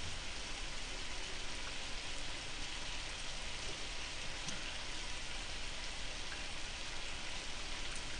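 Pork slices sizzling on a hot tabletop griddle, a steady even hiss.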